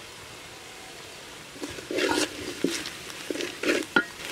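Wooden spatula stirring and scraping through onions and green chillies frying in oil in a metal cooking pot. The strokes start about a second and a half in, with a couple of sharp knocks among them.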